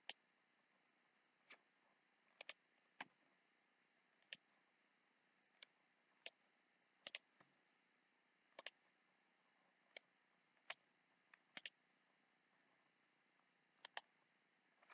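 Faint computer mouse clicks at irregular intervals, some of them quick double clicks, over near-silent room tone.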